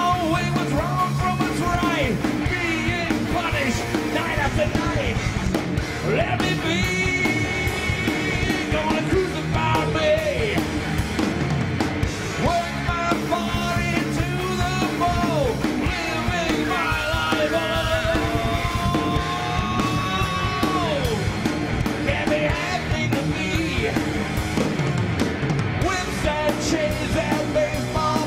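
Heavy metal band playing live: drums and distorted electric guitar, with a lead line of bending, sliding notes running through the passage.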